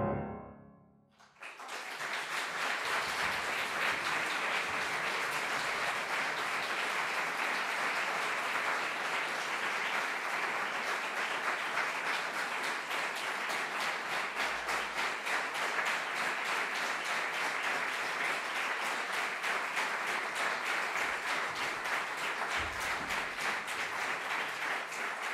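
A grand piano's last chord dies away, and about a second later an audience breaks into steady applause that carries on to the end.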